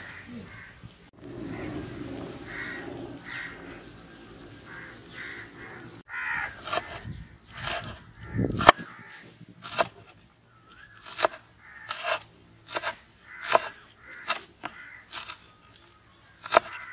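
Crows cawing over a soft outdoor background, then, from about six seconds in, a knife chopping banana flower florets on a wooden cutting board in steady strikes, roughly three every two seconds.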